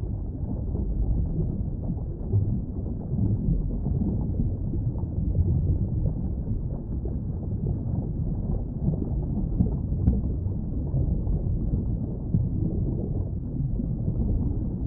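Low, muffled water rumble with nothing high in it, like underwater ambience, steady throughout.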